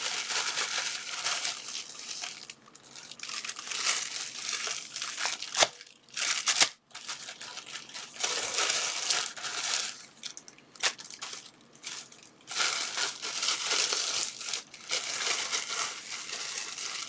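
Nested packaging bags being handled and opened, crinkling and rustling in spells with short pauses and a couple of sharp clicks.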